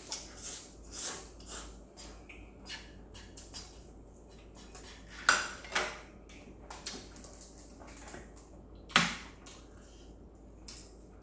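Eating utensils clinking and scraping against a bowl of noodles in a series of small clicks, with two sharper clinks about five and nine seconds in.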